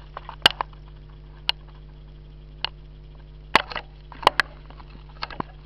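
Scattered sharp clicks and taps, about a dozen at irregular intervals, from handling the handheld inspection camera and pressing its buttons, over a steady low hum.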